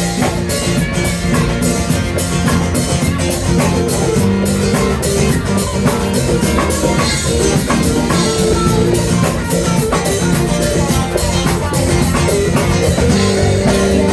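Rock band's instrumental break: a guitar solo played over a drum kit beat.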